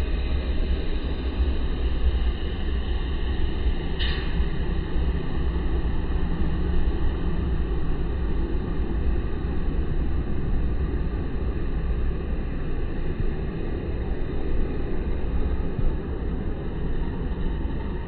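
Steady low rumbling background noise outdoors, with a single brief sharp sound about four seconds in.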